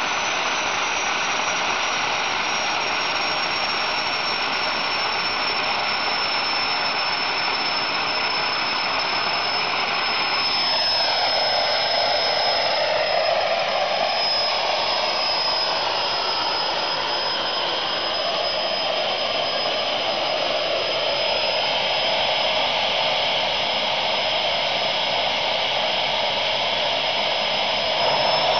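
Homemade propane-fired turbojet built from a Holset turbocharger, running steadily: a loud rushing noise of combustion and airflow with a high, thin turbine whine on top. Some tones dip and swing back up about a third of the way in, and the whine sinks slowly and climbs again near the end.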